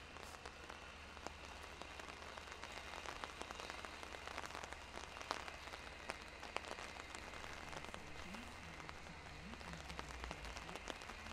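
Steady rain falling, with many sharp drips and patters spread through it.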